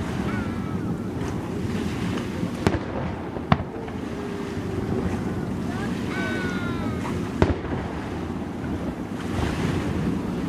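Fireworks going off: three sharp bangs, about 3 s, 3.5 s and 7.5 s in. Whistling tones that bend in pitch sound near the start and again about 6 s in, over a steady low background rumble.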